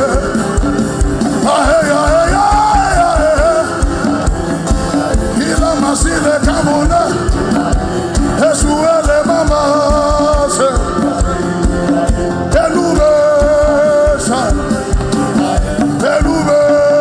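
Live worship band music: a steady, quick drum beat under a wavering melody line.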